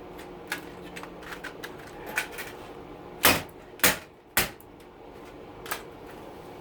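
Small clicks, then three loud sharp knocks about a second and a half apart, from plastic parts being pried and knocked while a dishwasher's circuit board is worked loose from its plastic case.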